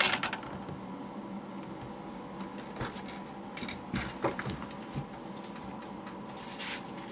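Hands handling a phone and plastic case parts: a clatter right at the start, then a few small scattered clicks and a brief rustle, over a steady hum.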